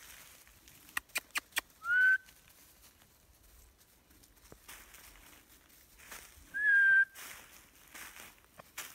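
Two short whistles about five seconds apart, each rising quickly and then held briefly, after a quick run of four sharp clicks.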